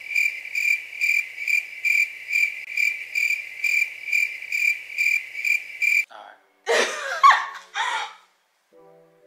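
Crickets chirping: a steady high trill pulsing a little over twice a second that cuts off suddenly about six seconds in. A loud burst of laughter follows.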